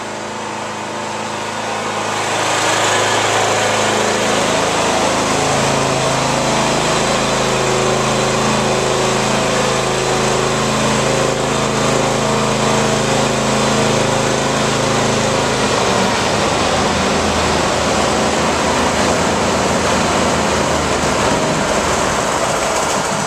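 Riding lawn tractor engines running steadily. The sound swells about two seconds in as a tractor pulls close, and turns rougher and less even from about sixteen seconds in as a second tractor joins.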